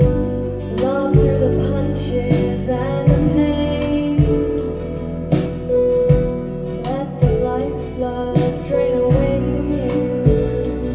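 Recorded music played back over Marten loudspeakers, with a deep bass line changing note about once a second under sustained melody notes.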